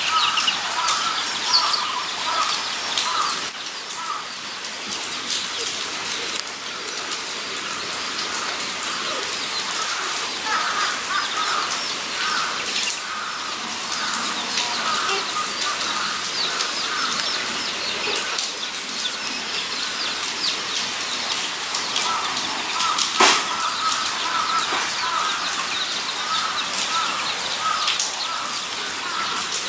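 Several guinea pigs squeaking in runs of short, repeated calls, with small clicks and scrabbling on a wire-mesh floor and one sharp knock late on.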